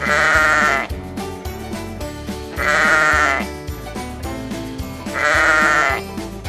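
Sheep bleating three times, each bleat just under a second long with a wavering tone, about two and a half seconds apart, over background music.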